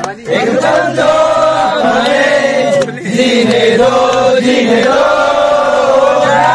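A group of young men singing together in chorus, holding long notes.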